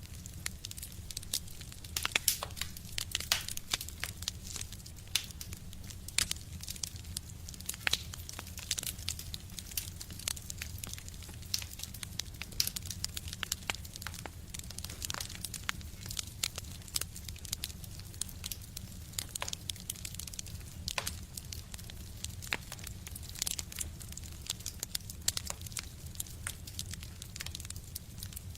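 Wood fire burning in a stove, crackling with frequent, irregular sharp pops and snaps over a steady low rumble.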